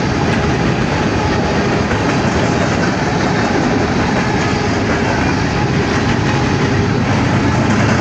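Empty coal gondola cars of a freight train rolling past close by: a loud, steady rumble of steel wheels on rail.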